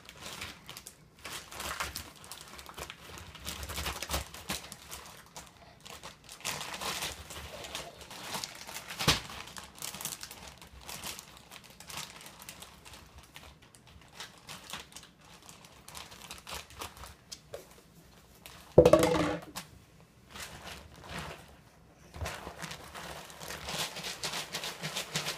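Plastic zip-top bags crinkling and rustling as a bag of cream mix is pushed into a bag of ice cubes and handled, with the ice shifting inside. One brief, louder knock comes a little past two-thirds of the way through.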